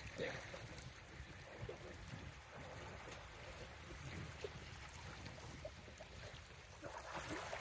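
Faint small sea waves lapping and splashing against shoreline rocks and boulders, with scattered small splashes over a low, steady rumble.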